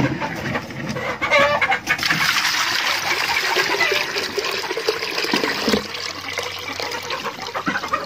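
Water being poured into a plastic poultry drinker: a steady splashing pour starts about two seconds in and eases off after about four seconds. Chickens cluck now and then.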